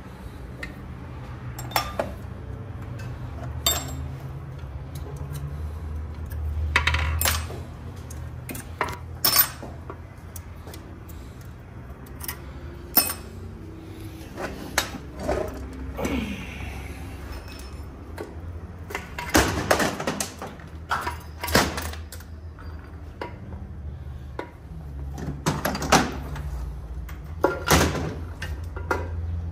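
Scattered metallic clinks and knocks of hand tools and metal parts being handled, in clusters, over a steady low hum.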